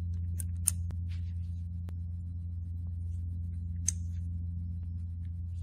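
A steady low hum throughout, with a few small sharp clicks of hard plastic and metal fuel-pump parts being handled and fitted together by hand, the loudest about a second in and again about four seconds in.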